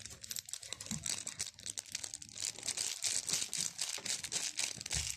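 Plastic packaging crinkling and rustling as it is handled, a dense run of irregular crackles.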